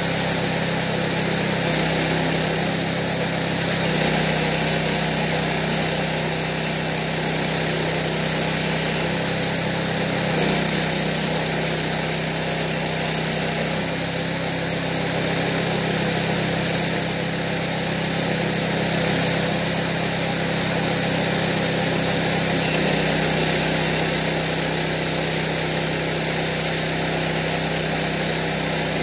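Small engine running steadily as it drives an alternator converted into an arc welder, its note shifting slightly a few times.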